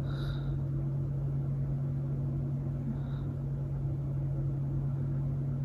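A steady low machine hum from something running in the room, with a faint short high squeak right at the start and a fainter one about three seconds in.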